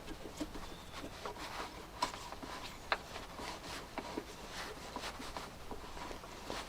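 Scattered light clicks and taps of small metal and plastic parts and a hand tool being handled during work on a car door's lock mechanism, with a sharper click about three seconds in.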